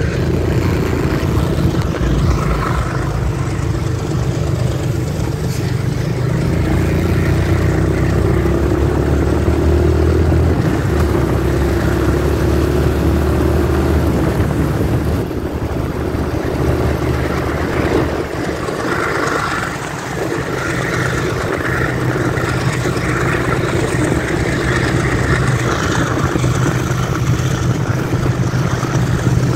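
Motorcycle engine running at road speed, its pitch drifting up and down, over a steady rush of wind and tyre noise from the wet road.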